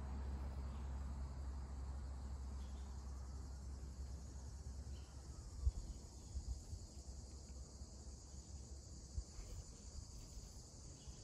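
Steady high-pitched chorus of insects, under a low rumble on the microphone, with a single thump about halfway through.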